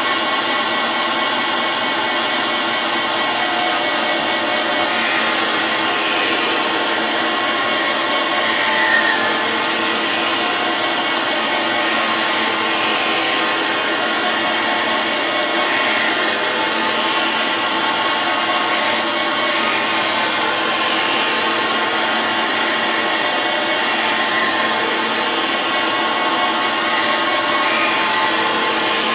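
Surface grinder running, its wheel grinding a wood chipper blade two thou a pass: a steady grinding hiss over the machine's even hum.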